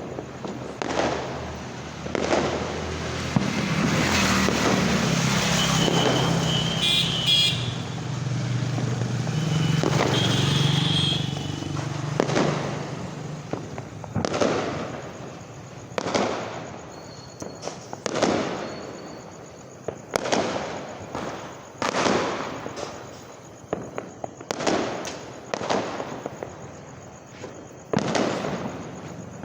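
Firecrackers going off repeatedly as sharp bangs. A louder, steadier stretch runs from about 3 to 11 seconds in, and after that the bangs come one by one, roughly every one to two seconds.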